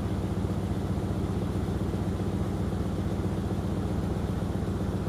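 An engine idling: a steady, even low drone.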